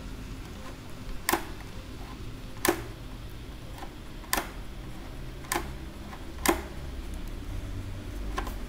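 Plastic clicks from the side slider of a KYT Galaxy half-face helmet's inner sun visor as it is worked up and down: six sharp clicks about a second or so apart, the last one fainter.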